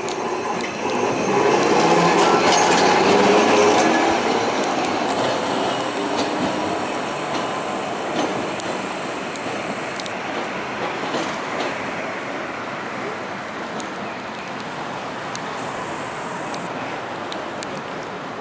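Kumamoto City streetcar running past close by, its motor and steel wheels on the rails loudest for a few seconds about a second in, then settling into a steady rumble of street and tram noise.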